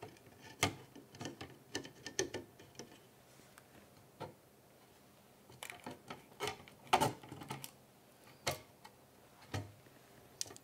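Irregular light clicks and small metallic knocks of hand work on a 3D printer's heated bed: screws, washers and the metal bed plate being fitted onto the bed carriage. The clicks come in a busier cluster about six to eight seconds in.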